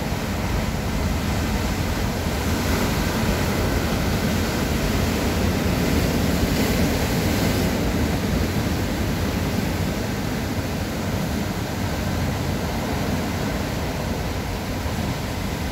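Rough surf breaking over rocks and washing around them in foam, a steady rush of churning water that swells a few seconds in and eases slightly toward the end.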